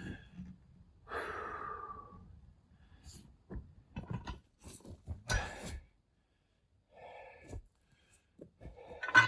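A man breathing hard while straining to move a heavy log by hand, with scattered knocks and scrapes. The loudest knock comes near the end.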